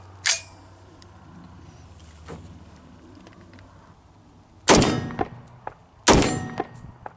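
Two unsuppressed rifle shots from an AR-15 in 5.56 fitted with an ASR muzzle brake, about a second and a half apart, each with a ringing tail. A short sharp click comes just after the start.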